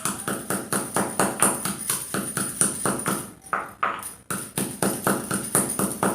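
Pestle pounding cinnamon stick pieces in a mortar to crush them to powder. The knocks come fast and even, about five or six a second, with a brief break a little before the four-second mark.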